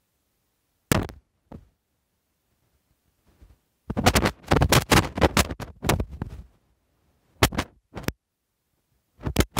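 Handling noise: irregular sharp knocks and clicks. There is a single knock about a second in, then a dense run of clicks from about four to six seconds in, and a few more near the end.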